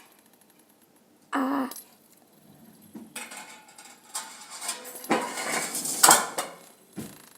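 Fidget spinner spinning and rattling as it is tapped against a fingertip, starting about three seconds in, growing louder and peaking a second before the end. A brief vocal sound comes about a second and a half in.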